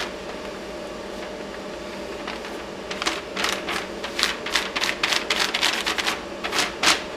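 A hand rubbing back and forth over a sheet of paper pressed against an engine's mounting face, taking a rubbing of the mount holes: a scratchy rustle in quick strokes, sparse at first and then rapid from about three seconds in. A steady hum runs underneath.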